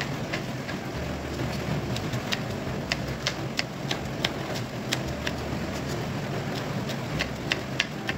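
Kitchen knife slicing red chillies, tapping against the cutting board in sharp, uneven taps about twice a second, over a steady low background hum.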